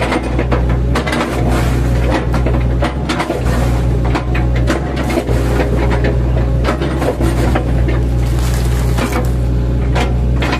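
Mini excavator's engine running steadily under load, with irregular crunching and cracking as the bucket chops into a felled oil palm trunk.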